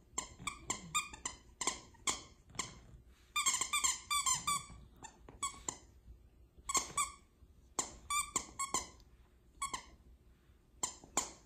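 Large plush squeaky dog toy squeaked over and over as a Shih Tzu bites and mouths it. The squeaks are short and come in irregular clusters, with a quick run of them about three to five seconds in.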